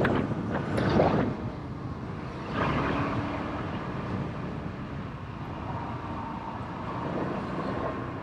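Motorbike engine running as it rides along a road, with a louder rush of wind-like noise in the first second or so. After about three seconds it settles into a quieter, steady hum.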